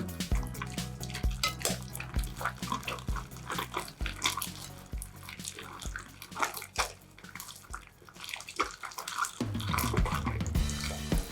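Wet, sticky clicks and squelches of slime being mixed and squeezed, over background music with a steady beat; the music's bass drops out for several seconds in the middle.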